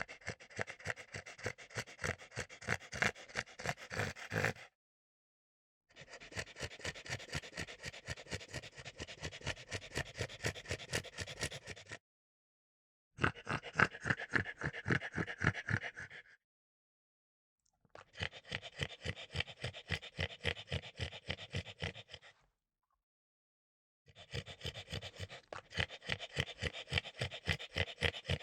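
Bulldog panting: quick, even breaths in and out in several runs of a few seconds each, separated by dead-silent gaps.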